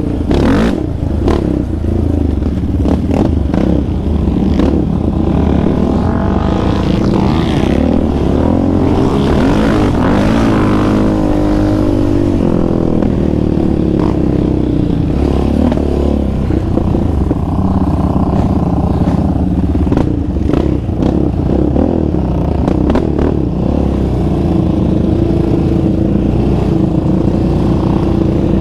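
Yamaha Raptor 700R ATV's single-cylinder four-stroke engine running steadily under a rider, revving up and back down partway through, with scattered clicks and rattles.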